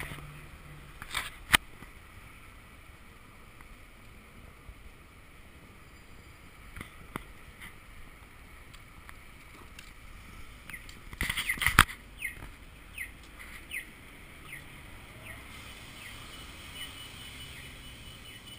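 Baby stroller rolling along a city sidewalk against a steady hum of street noise, with scattered clicks and rattles; a cluster of louder knocks and rattles comes a little past the middle.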